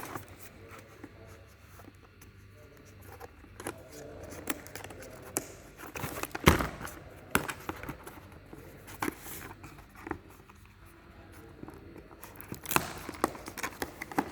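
Hands opening a sealed product package: scattered clicks, scrapes and plastic rustling, with a sharp knock about six and a half seconds in and another near the end.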